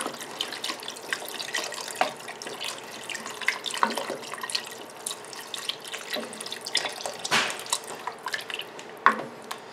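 Chicken stock poured from a carton into a pot of tomato-sauce stew, splashing and trickling into the liquid, with many small clicks and a few sharper ones near the end.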